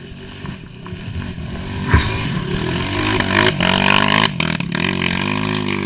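Dirt bike engine revving hard as the bike climbs up the trail toward and past, getting steadily louder, with a sharp knock about two seconds in.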